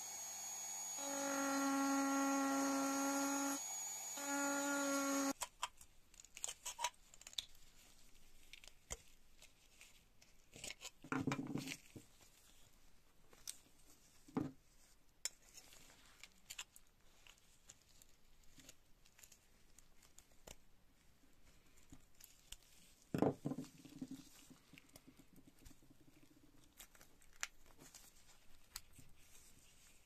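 A rotary tool fitted with a small ball burr runs with a steady whine for about five seconds while grinding out a rivet on a rusty pocket knife's handle scale, dipping briefly partway and then stopping abruptly. After it, scattered small clicks and scrapes of a flat-blade screwdriver prying the metal scale off the knife, with a louder scrape and knock later on.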